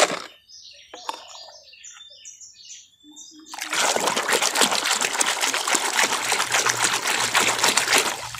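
Hand sloshing and swishing through a basin of foamy muddy water, a steady rush of splashing that starts about three and a half seconds in. Before it, a single sharp knock.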